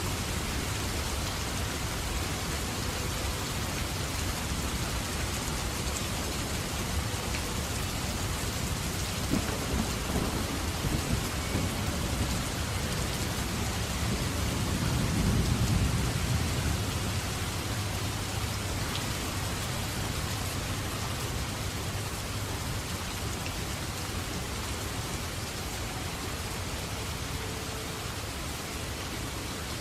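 Steady heavy rain, with a low roll of thunder building about a third of the way in, loudest around the middle, then fading away.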